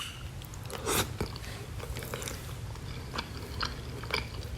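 A person chewing and biting into soft, juicy soup dumplings: scattered small wet mouth clicks, with one louder one about a second in.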